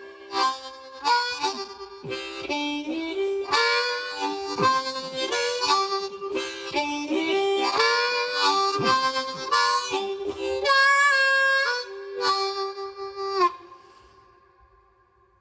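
Solo harmonica playing a blues riff: a run of short notes, ending on a held note that stops about thirteen seconds in and dies away.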